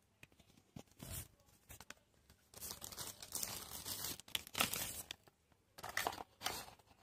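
Paper and plastic packaging from a phone box being handled, torn and crinkled by hand: a short rustle, then a longer stretch of tearing and crinkling, then two more brief rustles near the end.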